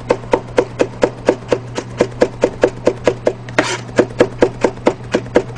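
Chef's knife mincing garlic on a plastic cutting board: quick, even chopping strokes at about five a second, over a low steady hum.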